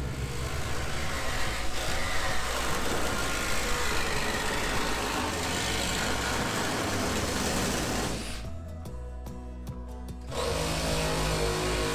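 Background music over power-tool noise. About eight seconds in, the tool noise drops out for some two seconds, leaving only the music. Then a cordless reciprocating saw starts cutting through the rusted sheet-metal cab floor.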